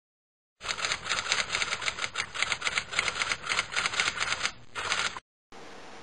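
Rapid clicking keystrokes on a laptop keyboard, about six a second, starting about half a second in, pausing briefly near the end for a final short flurry, then giving way to steady room hiss.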